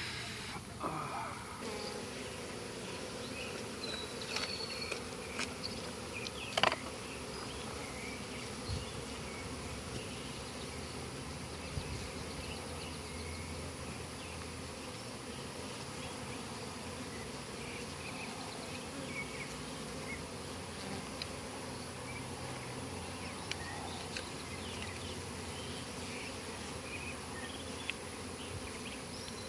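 Steady buzzing of a large colony of honey bees flying around their opened hive, with a few short knocks and clicks in the first several seconds.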